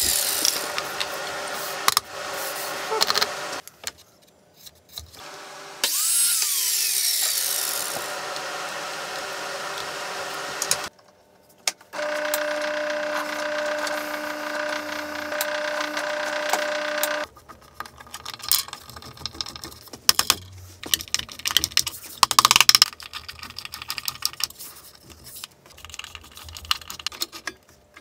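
Bursts of power-tool noise with a whine that rises and falls in the first several seconds. Then a bench drill press motor runs steadily for about five seconds from around twelve seconds in, followed by scattered knocks and clicks of tools and wood being handled.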